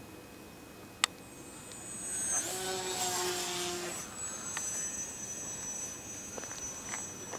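Radio-controlled model airplane's motor and propeller flying past overhead: a high whine that swells between about two and four seconds in and drops a little in pitch as the plane goes over. A single sharp click about a second in.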